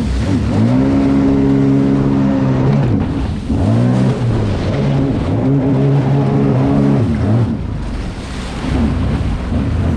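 2021 Sea-Doo Spark Trixx personal watercraft's three-cylinder Rotax engine revving up and easing off in three throttle surges, then running lower near the end.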